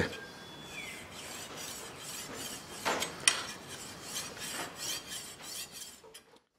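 Pocket sharpening stone rubbed back and forth along the flat face of a steel machete blade, about two scratchy strokes a second, polishing off the wire edge left by the file. The strokes stop near the end.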